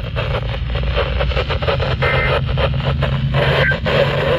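Hiss and frequent crackles of noisy NOAA Weather Radio reception, with no voice on the channel, over a steady low hum.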